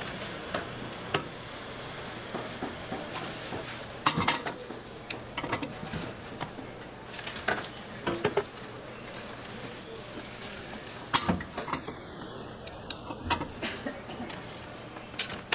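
Irregular metallic clinks and knocks of cast-iron bungeoppang moulds and a metal pick as fish-shaped buns are turned out and set on a steel rack, over a steady hiss.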